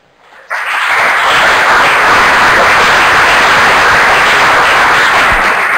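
Audience applauding. The clapping starts suddenly about half a second in, holds steady and dense, and stops just before the end.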